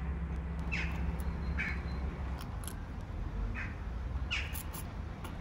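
Four short, harsh animal calls, about a second apart, over a steady low background hum, with a few light clicks in the second half.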